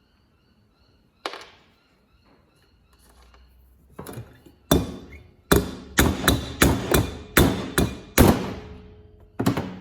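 Hammer blows on a spark plug socket held against the valve spring retainers of a Honda CRF450R cylinder head, knocking the valve collets loose so the valves can come out. There is one sharp metallic strike about a second in, then a quicker run of about ten strikes from about four seconds in.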